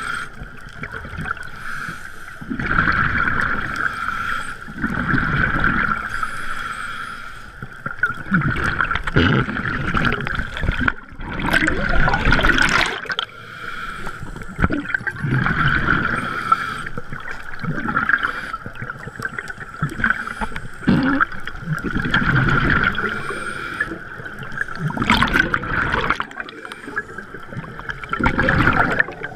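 Scuba regulator breathing heard underwater: exhaled bubbles gurgle out in rough surges every few seconds over a steady hiss.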